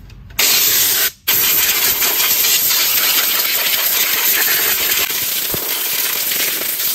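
Water spraying onto a reel mower's cutting cylinder and bottom blade, rinsing off the lapping paste: a steady, loud hiss that starts about half a second in, with a brief break just after one second.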